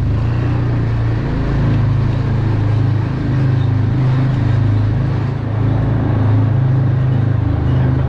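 Yamaha Rhino UTV's single-cylinder engine running at low, slightly varying revs as it creeps slowly along.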